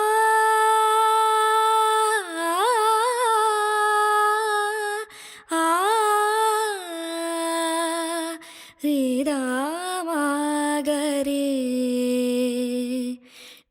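Wordless solo vocal melody, hummed in slow Carnatic style: long held notes ornamented with wavering slides, stepping down in pitch, with short breaks about five and eight and a half seconds in.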